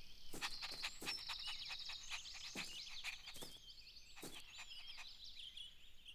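Faint garden ambience of small birds chirping and trilling, with a few short, sharp taps scattered through.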